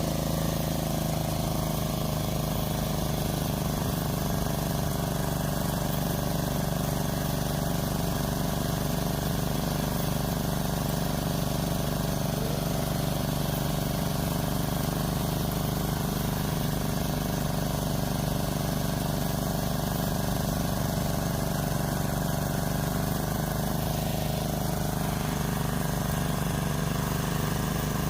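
A small engine running steadily at a constant speed, with no change in pitch.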